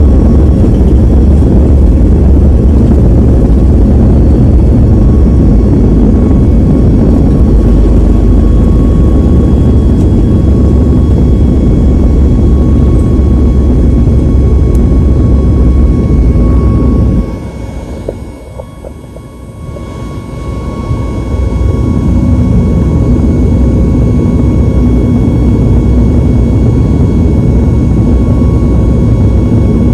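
Jet airliner engines at takeoff thrust heard from inside the cabin during the takeoff roll and initial climb: a loud steady roar with a constant high whine over it. About two-thirds of the way through, the roar drops sharply for a few seconds and then comes back.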